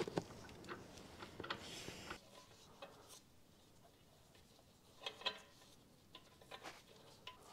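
Faint, scattered clicks and light taps of hands working on car parts, about a dozen short sounds with quiet gaps between them.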